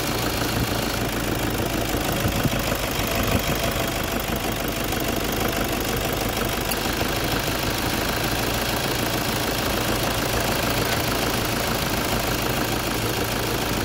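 Toyota Hilux turbo-diesel engine idling steadily with the hood open, running with the air conditioning compressor engaged for a refrigerant pressure check on manifold gauges.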